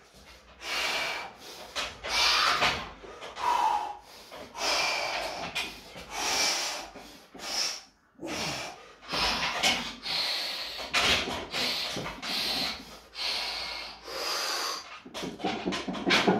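A man breathing hard and forcefully, about a dozen sharp breaths in quick succession, as he braces under a loaded squat bar before a heavy lift.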